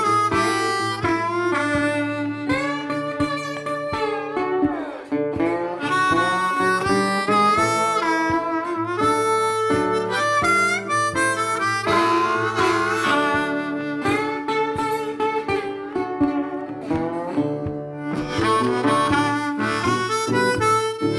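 Background music: a blues tune with a harmonica lead bending its notes over guitar.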